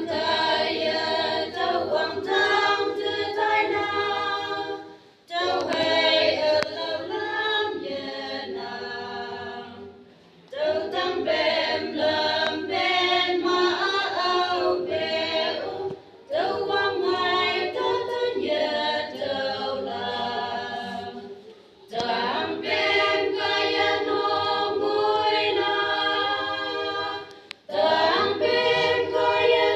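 Women's choir singing a hymn a cappella in several voice parts. The sung phrases break off with short pauses about every five to six seconds.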